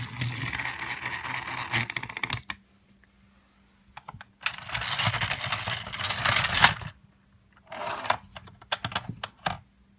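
Battery-powered Trackmaster toy engine running on plastic track with a steady motor hum, ending in a run of clicks. After a short quiet comes a loud rattling burst of about two seconds, then scattered plastic clicks and clatter as the set's pieces are knocked and moved.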